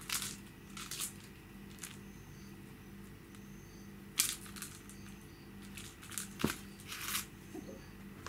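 Kitten playing with a string toy on a tiled floor: scattered short scuffling and rustling noises, with a sharper tap about six and a half seconds in, over a faint steady low hum.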